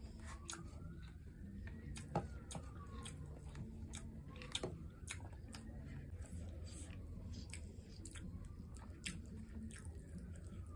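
Close-miked chewing and wet mouth sounds of a person eating rice and tomato stew with cow foot by hand: soft smacks and frequent small clicks, with two sharper clicks about two and four and a half seconds in. A faint wailing tone rises and falls slowly behind it.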